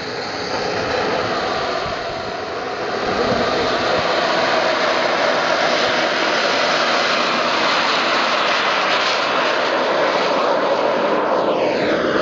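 Turbine engine of a Skymaster BAe Hawk radio-controlled model jet running up to full power for the takeoff roll, a steady loud jet roar that grows louder about three seconds in. Near the end the sound takes on a sweeping tone as the model lifts off and climbs away.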